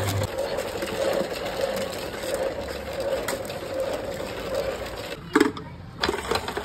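Traditional ice-cream churn turning steadily in its ice-and-salt freezer with a rhythmic mechanical whirr, the custard-apple ice cream mix inside already largely set. A sharp knock about five seconds in, then a brief lull before the churning sound returns.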